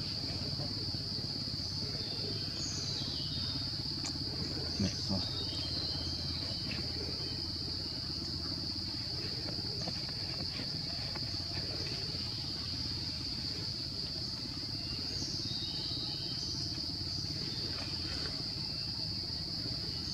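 Steady, high-pitched drone of insects, with a few faint short chirps over it and two brief soft sounds about five seconds in.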